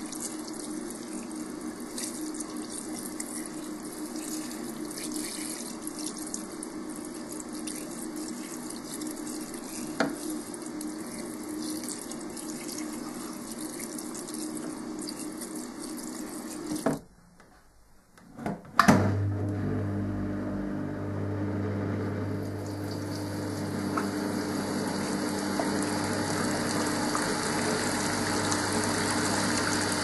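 Creda Auto-Pump spin dryer spinning with water from the tap hose running into its drum, over a steady motor hum. After a break with a sharp knock near the middle, water gushes from the dryer's pump outlet into a stainless steel sink, over a deeper, steady hum from the motor and pump.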